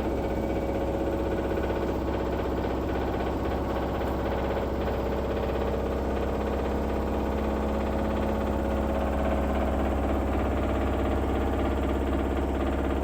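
LG washing machine in its high-speed spin (extraction) cycle: a steady hum of the drum and motor at full speed, with a few steady tones running through it.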